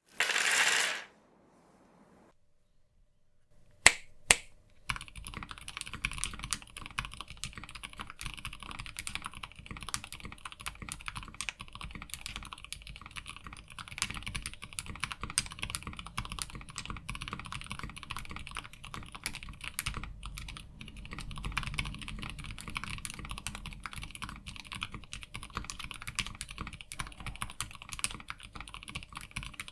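Typing on a mechanical keyboard fitted with Gateron POM Mint Smoothie silent linear switches: a continuous patter of keystrokes from about five seconds in. It is preceded by a short burst of noise at the very start and two sharp knocks about four seconds in.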